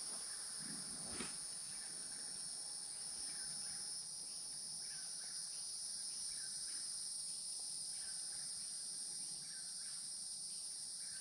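Night insect chorus of crickets or katydids: a steady high-pitched drone at two pitches. A faint short call repeats about every second and a half, and there is one brief low knock about a second in.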